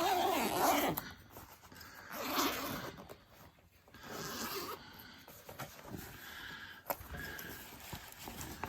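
Zipper on a soft fabric belt bag being pulled open in several short rasping strokes, loudest in the first second, then quieter handling noise.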